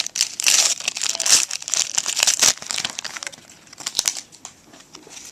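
The plastic wrapper of a 2013 Panini Prestige trading-card pack being torn open and crinkled. It is loud and dense for the first two and a half seconds, then softer rustling with a sharp tick about four seconds in.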